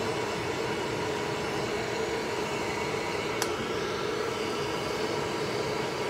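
Hair dryer running steadily with a constant hum while a wet chinchilla is dried; a single short click about three and a half seconds in.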